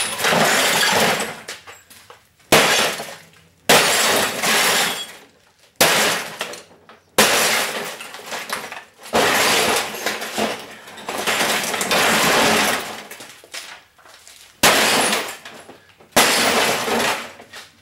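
Glass of a Philips Magnavox television being smashed: about seven hard blows, each followed by a second or two of shattering and falling glass, with a pause of a few seconds in the middle.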